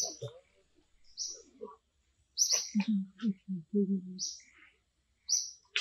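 Birds chirping, short high calls repeating about once a second, with a brief run of low, pulsed vocal sounds around the middle.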